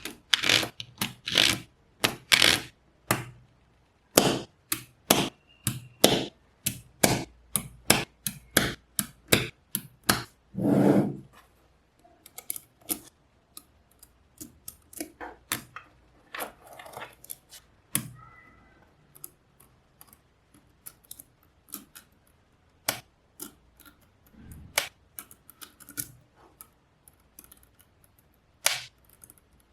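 Small neodymium magnetic balls clicking and snapping together as they are pressed into place. A quick run of sharp clicks for about the first eleven seconds, then fewer, quieter clicks.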